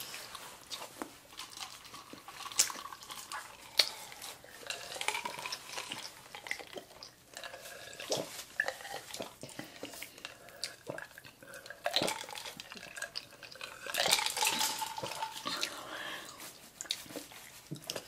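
Close-miked eating and drinking sounds: scattered mouth clicks and chewing, sips from a bottle, and light clinks and taps of food and tableware being handled.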